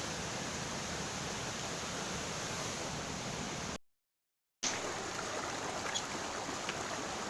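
Steady rush of flowing river water. About four seconds in the sound drops out completely for under a second, then resumes with a few faint light ticks.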